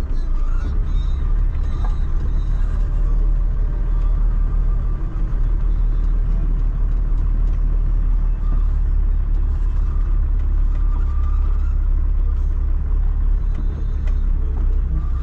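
Truck driving on a dirt road: a steady low rumble of engine and road noise.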